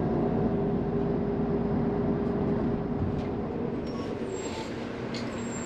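Heard from inside a local bus: a steady engine and drivetrain hum with a held tone. It fades about three seconds in as the bus slows, and a few light clicks follow near the end.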